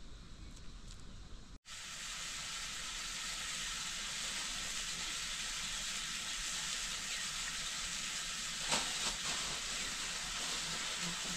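Food frying in hot oil in a pan, a steady sizzling hiss that starts suddenly after a cut about one and a half seconds in, with a couple of light clicks about nine seconds in. Before the cut there is only a faint low rumble.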